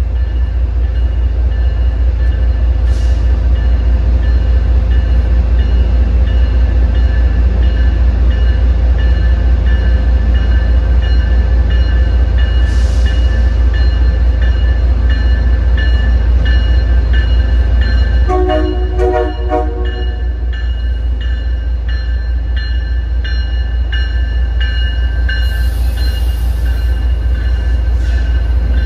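MBTA diesel commuter train approaching and passing, with a loud steady low engine rumble and a bell ringing at a regular beat. A brief horn sounds about two-thirds of the way in, and the wheels screech near the end as the coaches pass.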